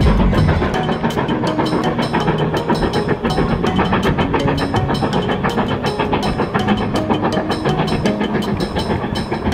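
Background music with a quick, steady percussive beat and a melody of short notes.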